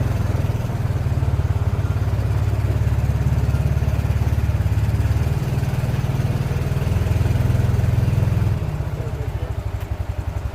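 ATV engine running with a fast, even low pulse. About eight and a half seconds in it eases off to a lower, slower idle.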